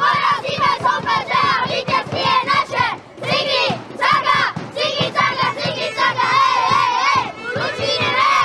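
A group of young boys shouting together in a team huddle, many voices at once in a loud chanted cheer.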